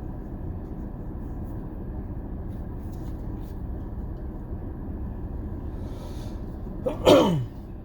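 Steady low rumble inside a car with its engine running. About seven seconds in, a man's voice gives a short, loud groan that falls in pitch.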